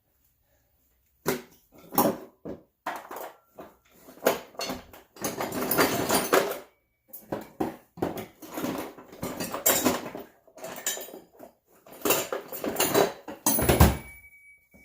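Metal hand tools clinking and clattering as they are handled and rummaged through, starting about a second in, with a heavier thump near the end.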